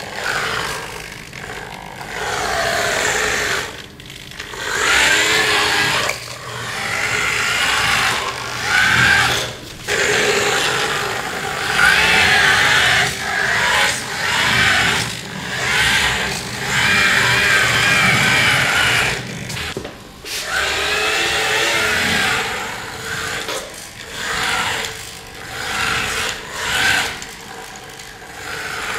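Electric drive motor and plastic gearing of a remote-controlled Fischertechnik buggy, whining and grinding as it drives. It comes in bursts of a few seconds that stop and start again, the whine wavering up and down in pitch.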